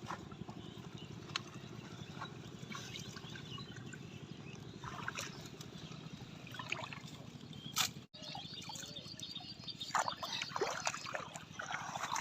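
Water trickling and splashing in a shallow river, with scattered small knocks and louder splashes in the last couple of seconds.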